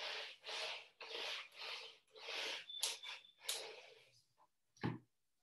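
A whiteboard being wiped with an eraser: about seven rubbing strokes, roughly two a second, then a single short knock near the end.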